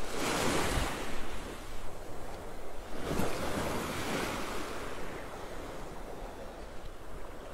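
Small sea waves washing in at the shoreline, swelling twice, near the start and again about three seconds in, with some wind on the microphone.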